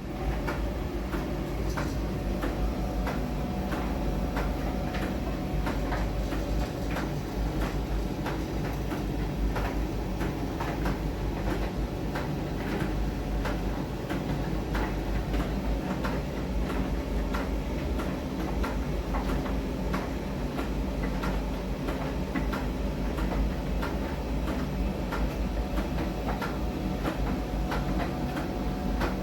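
Miele tumble dryer running with a load of bath towels: a steady motor rumble and hum under a rapid, regular series of soft knocks as the towels tumble in the drum. It starts abruptly.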